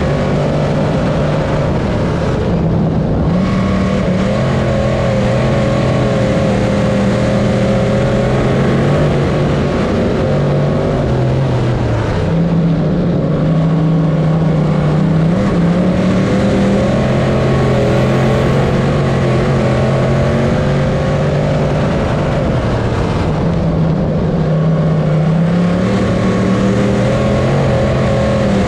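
Dirt modified race car's V8 engine at racing speed, heard from inside the cockpit. Its pitch drops and climbs back again about every ten seconds as the throttle is lifted for the corners and reapplied down the straights.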